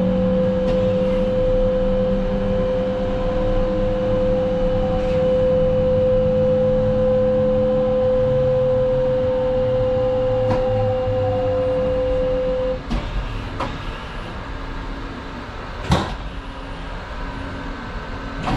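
Steady electrical whine and hum from the stopped train, which cuts off suddenly about 13 seconds in. A few sharp clicks and knocks follow, the loudest about 16 seconds in.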